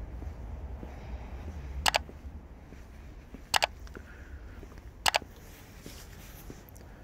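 Three sharp double clicks, evenly spaced about a second and a half apart, over a low steady rumble.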